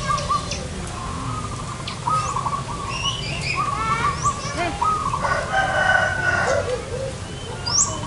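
Zebra doves cooing in repeated short, wavering phrases. A rooster crows about five seconds in, and there are a few brief high chirps from small birds.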